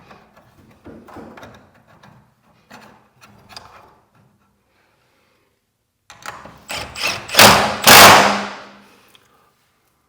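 Garage door hinge and roller hardware being fitted by hand: light metal clicks and knocks, then, about six seconds in, a quick run of knocks building to a loud burst that fades out.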